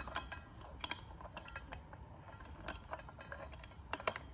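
Small metal ceiling-fan parts being handled and knocked together, a scatter of light clinks and clicks, the sharpest pair about a second in and again near the end.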